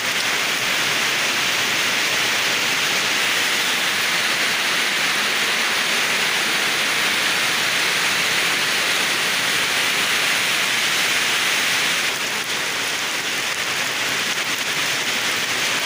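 Heavy rain falling steadily, an even hiss that eases slightly about twelve seconds in.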